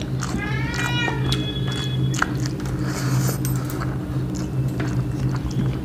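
Fingers mixing rice and curry on steel plates, with scattered soft clicks and scrapes over a steady low hum. About half a second in comes a short call that rises and falls in pitch.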